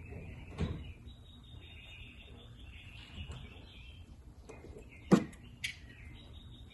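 Steady high chirping of frogs and insects in the background, with a few short sharp knocks from handling things, the loudest about five seconds in.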